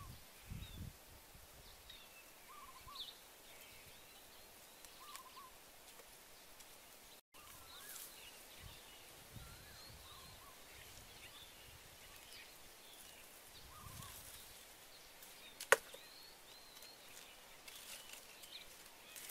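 Faint outdoor ambience of small birds calling, a short chirp repeating every couple of seconds, with footsteps and rustling in dry brush and leaf litter. A single sharp crack comes about three-quarters of the way through.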